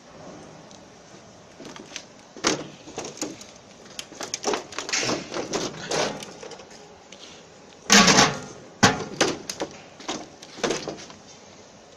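Irregular clattering knocks of the metal lid and drum of a dry garlic peeling machine being handled, with a heavy clank about eight seconds in as the lid is set on.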